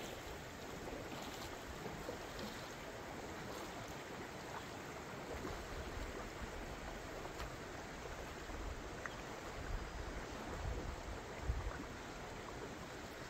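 Steady rush of a flowing river, with a few low thumps near the end.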